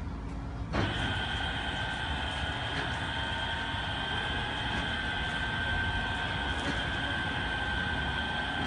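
Automatic car wash machine starting up abruptly about a second in, then running steadily with a high whine over a hiss.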